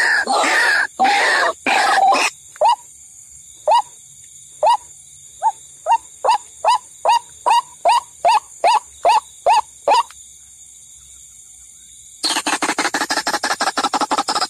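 White-breasted waterhen (ruak-ruak) calls from a bird-lure recording: a burst of loud harsh calling, then a string of short single notes that speed up, a brief pause, and a fast, dense run of pulsed calls starting near the end.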